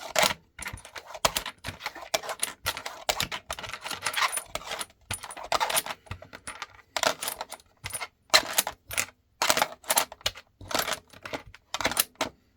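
5.56 mm rifle cartridges clinking against each other and a 3D-printed plastic speedloader tray as they are handled: an uneven run of sharp clicks, two or three a second.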